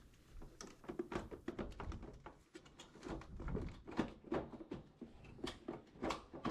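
Irregular clatter of knocks and clicks from hard plastic parts of a Samsung washer being tugged and handled while it is taken apart, some two dozen sharp knocks over about six seconds.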